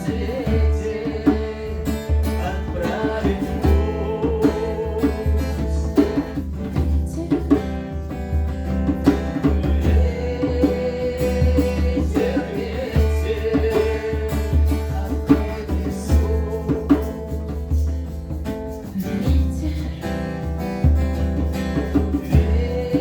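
Instrumental passage of an acoustic song: plucked guitar over a steady bass.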